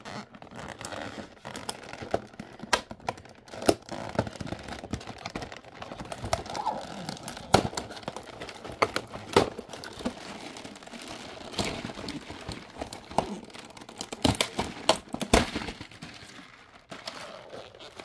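Hard plastic display shelves and miniature toy food pieces being handled and shifted, a steady rustle broken by frequent sharp plastic clicks and clacks.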